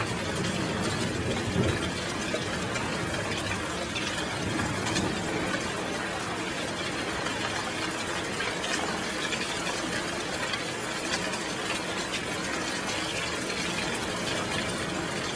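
Steady rushing of sea surf.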